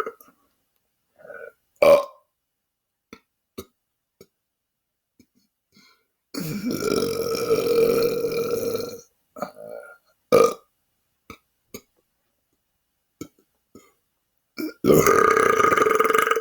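A man belching deliberately: one long drawn-out belch of about three seconds midway and another starting near the end, with a few short burps and faint clicks in between.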